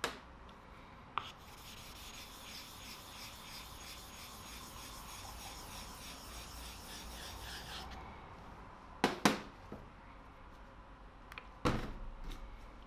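A hand rubbing rapidly back and forth across the wet face of a Japanese natural sharpening stone (Izari), a rhythmic scraping of several strokes a second. Near the end come a few sharp knocks.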